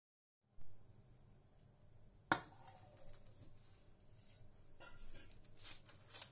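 Household handling sounds in a quiet room: a single sharp knock or click about two seconds in, then light clicks and rustling near the end.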